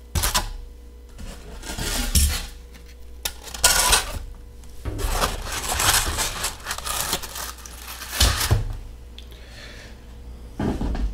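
Polystyrene foam packing sheets scraping and rubbing against each other and the cardboard box as they are lifted out and set down, in several separate bursts with a few light knocks.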